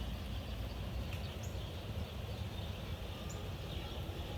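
Steady noise of hard rain and wind, with a low rumble from wind on the microphone. A faint short high chirp comes about every two seconds.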